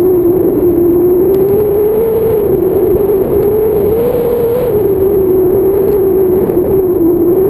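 Wind rushing over the camera as a tandem paraglider glides in to land, with a loud, steady droning whistle that wavers slightly in pitch.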